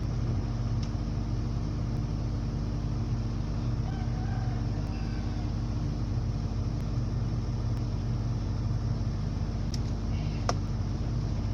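Car engine idling steadily while it warms up, with a couple of sharp clicks near the end.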